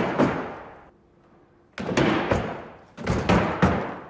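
Three loud crashing impacts, each made of a few quick knocks that fade out over about a second, like bodies or gear landing heavily on stage platforms during acrobatic training.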